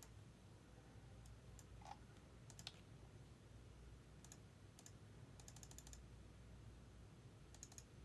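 Near silence with faint, scattered computer keyboard clicks, including a quick run of keystrokes a little past halfway.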